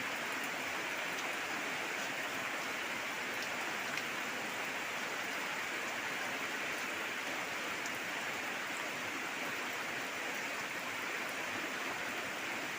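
Steady rain falling: an even, unbroken hiss with a few faint drop ticks scattered through it.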